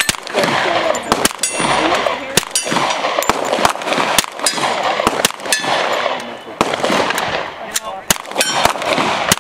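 KRISS Vector Super V CRB carbine firing subsonic .45 ACP rounds semi-automatically: a fast string of about fifteen or more shots at an uneven pace of a few per second.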